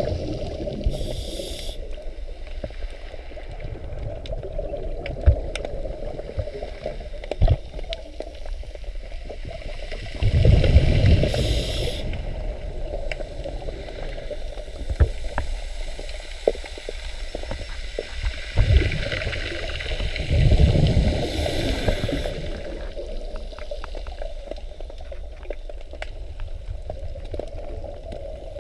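Scuba diver's breathing recorded underwater: exhaled bubbles from the regulator rumble and gurgle in bursts, about ten seconds in and again around twenty seconds in, with scattered small clicks and ticks between.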